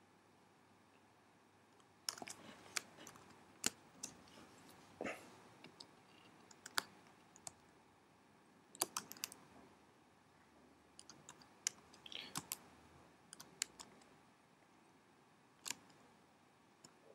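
Computer keyboard keystrokes and mouse clicks, scattered and irregular, some in small quick clusters, starting about two seconds in.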